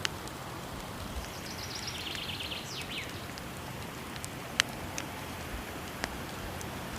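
Steady rushing of a waterfall with a wood fire crackling over it: a few sharp pops, the loudest a little past halfway. A short, rapid high trill that steps downward comes in about one and a half seconds in.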